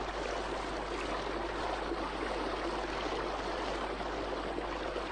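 Steady rushing of a fast-flowing stream's current: an even, unbroken water noise.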